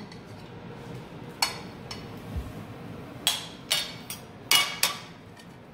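Metal knife and fork clinking and scraping against a ceramic plate while cutting a roasted chicken drumstick: a run of about eight sharp clinks, coming closer together in the second half.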